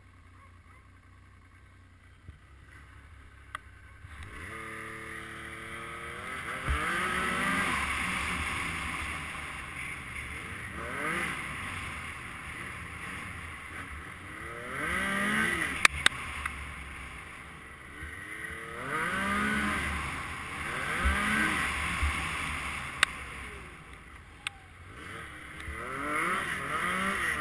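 Yamaha RS Rage snowmobile's four-stroke three-cylinder engine being ridden hard through deep snow, revving up and easing off again and again in long swells. It is faint for the first four seconds, then comes in. A few sharp knocks are heard as the sled hits bumps.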